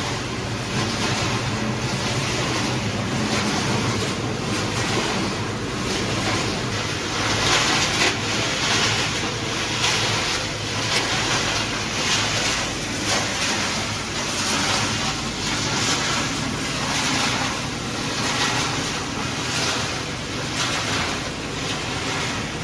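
PCB crushing and separating line running: a steady, loud rushing and grinding noise that swells and dips irregularly.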